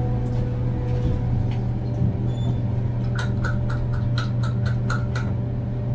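Steady low hum of an elevator car in motion. Between about three and five seconds in, a quick, even run of about nine sharp ticks sounds over it.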